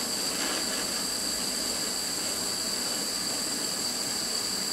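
Small gas torch flame burning steadily as it heats a stainless steel spoon joint, holding until the solder melts and flows into the seam.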